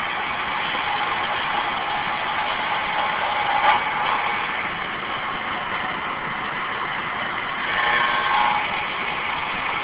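CNC milling machine with a 3/4-inch end mill cutting through plastic: a steady machining noise with a faint whine, briefly louder about four seconds in and again a little before the end.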